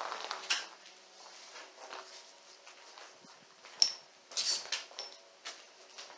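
Footsteps crunching and shuffling over a debris-strewn floor, with a few sharp clinks a little under four seconds in and around four and a half seconds in.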